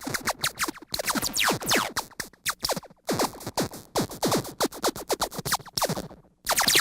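Synthesized sci-fi laser weapon firing in rapid volleys. Each shot is a quick falling 'pew' zap, many overlapping per second, in bursts broken by brief pauses.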